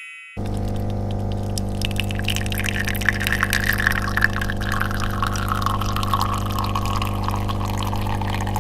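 Coffee machine's pump humming steadily while coffee streams and trickles into a cup. The sound starts suddenly about half a second in.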